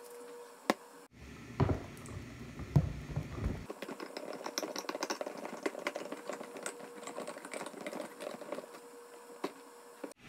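Kitchen knife cutting open the lid of a tin can: a few heavy knocks as the point is driven in, then several seconds of rapid metallic clicking and scraping as the blade is worked around the rim.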